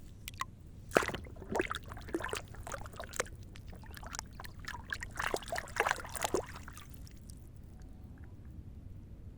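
A quick run of clicks, clatters and short scrapes, like things being handled and knocked together. It starts about a second in and stops about two-thirds of the way through.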